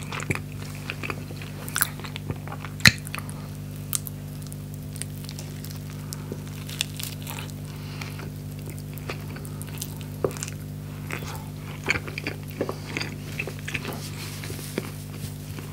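Close-miked chewing and biting of a skepasti pita filled with fried chicken and French fries: crunchy bites and moist mouth clicks at irregular intervals, with one loud sharp crunch about three seconds in, over a steady low hum.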